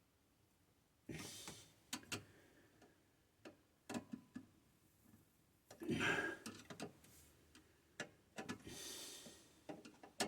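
Small scattered clicks and taps of a screwdriver and screws being worked on the terminals of a 40-60 well pressure switch, with a few short rustling hisses, the loudest about six seconds in.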